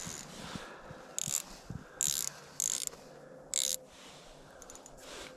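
Spinning reel working a hooked fish up through an ice hole: four short, high-pitched bursts of reel sound about a second apart, with a few light clicks near the end.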